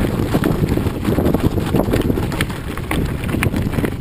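Tyres rolling over a loose gravel road, stones crunching and clicking rapidly and irregularly over a steady low rumble.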